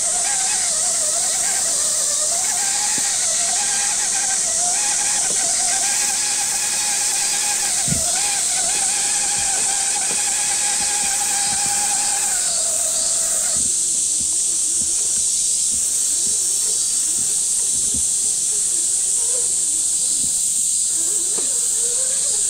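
A scale RC crawler's electric motor and gearbox whining, the pitch wavering as the throttle is fed in and eased off, then cutting out about thirteen seconds in. A steady high-pitched hiss runs under it throughout and is the loudest part.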